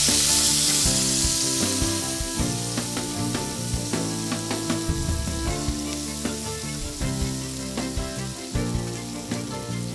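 Chopped onion sizzling in hot oil in a pan, with the clicks and scrapes of a spatula as it is stirred. The sizzle is loudest at first and dies down steadily as the onion's moisture cooks off.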